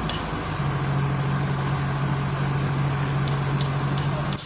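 Heavy machinery engine running steadily with an even low hum. A few light clicks sound over it, and there is a short hiss at the very end.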